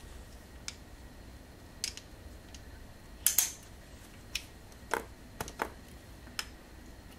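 FotoPro X-Go Max carbon fiber tripod's legs and leg locks being moved and set, giving about nine sharp clicks and small knocks at irregular spacing. The loudest is a short rattle about three seconds in.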